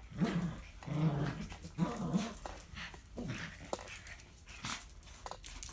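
Dogs growling in short, low bouts while tugging and play-fighting over a sock, with a few sharp clicks and scuffs between the growls.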